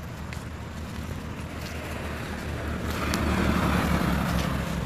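A vehicle passing on the road: a steady low rumble that swells about three seconds in and eases near the end, with a few faint clicks.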